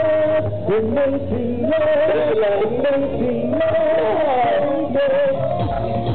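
Male pop singers singing live into microphones over loud amplified backing music, the melody gliding up and down.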